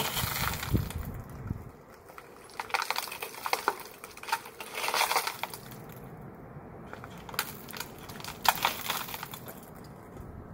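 Shattered safety glass crunching and clinking as a bar scrapes and knocks among the broken pieces, in irregular sharp taps with one louder knock toward the end.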